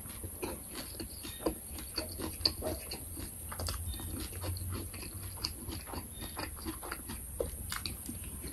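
Close-miked chewing: a person eating sticky rice and pounded mackerel chili dip by hand, with irregular small wet smacks and clicks of the mouth, over a faint steady low hum.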